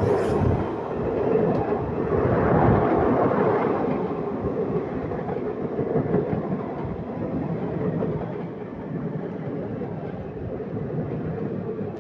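Indian passenger train running at speed: a steady rumble of wheels on the rails, a little louder in the first few seconds and then easing slightly.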